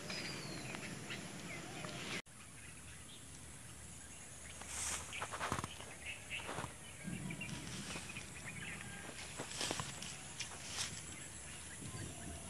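Quiet outdoor ambience with faint scattered rustles and soft knocks, including footsteps on grass and gravel, from a person handling a bamboo fishing rod and walking.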